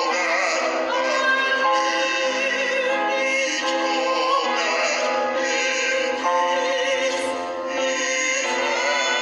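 A woman and a man singing a slow hymn with accompaniment, long held notes with vibrato that change every second or two.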